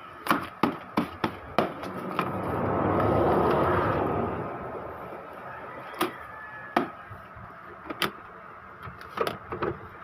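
Plastic clicks and knocks from an Epson L3110's scanner lid being worked and paper being handled on the scanner glass. About two seconds in, a rush of noise swells and fades over a few seconds.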